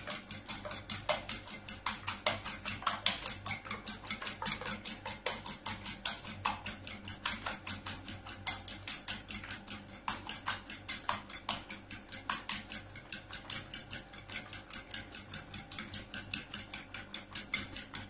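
Metal fork beating eggs in a ceramic bowl, clicking against the bowl in a quick, even rhythm.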